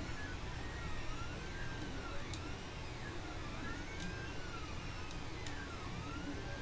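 Stepper motors of a running 3D printer whining in repeated rising-and-falling glides, about one every second and a half, as the print head speeds up and slows down between moves. A few short clicks sound over it.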